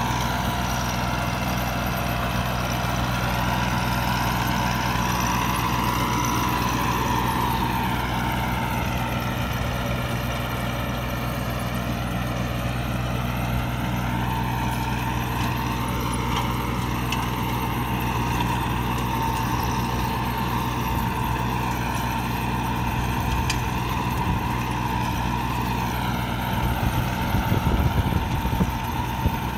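Kubota A211N compact tractor's diesel engine running steadily under load as it pulls a tillage implement through dry soil. A rougher, louder stretch comes near the end.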